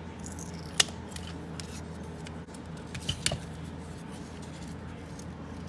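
Small garden snips cutting a craft piece: a few sharp snips, the loudest about a second in and two more close together around three seconds in, over a low steady hum.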